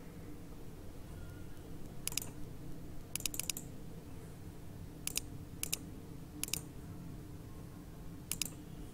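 Computer mouse clicking: a handful of sharp clicks, some in quick pairs and one short run of several, over a steady low hum of room and computer noise.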